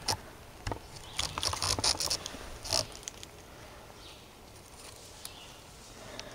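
Footsteps crunching and rustling through dry leaf litter, a quick cluster of crackling steps in the first three seconds, then quieter shuffling.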